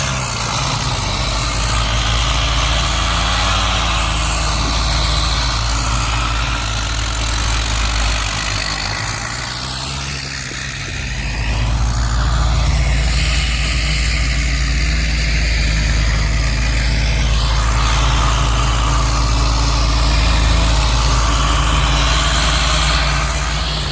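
Heavy engine of rock-breaking machinery running, its speed dropping and picking up again about halfway through.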